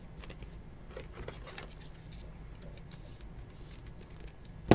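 Light rustling and small ticks of a trading card and rigid plastic card holders being handled, with one sharp click near the end.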